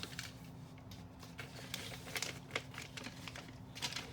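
Small plastic toy pieces and a plastic packaging bag being handled: scattered light clicks and brief rustles.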